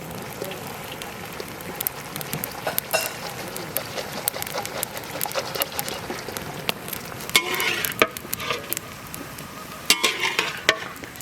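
Chopped cabbage and other vegetables sizzling in oil as a spatula stir-fries them in a large pan, with frequent clicks of the spatula against the pan and two louder scraping bursts in the second half.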